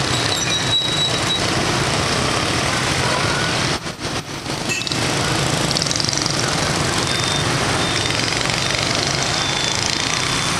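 Heavy motorbike and scooter traffic passing close by, a steady loud mass of small engines running, with cars among them.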